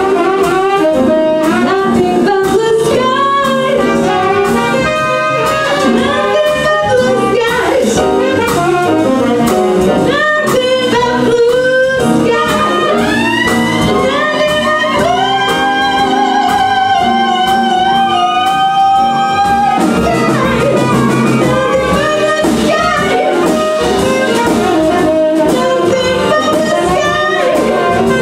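Live jazz band: a woman singing with saxophone, trumpet, upright bass, piano and drums behind her, with one long held note about two-thirds of the way through. Near the end the saxophone and trumpet play together.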